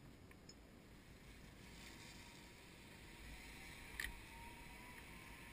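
Faint hiss of a zip line trolley running away down the steel cable, swelling about two seconds in over a low rumble, with a single sharp click about four seconds in and a faint thin whine after it.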